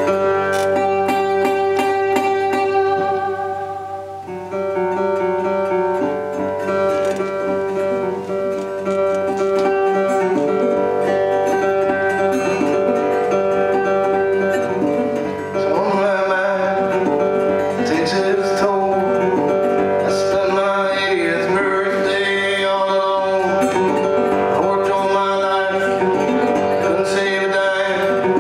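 Acoustic guitar picked in a steady folk-blues pattern, with a man's voice starting to sing over it about halfway through.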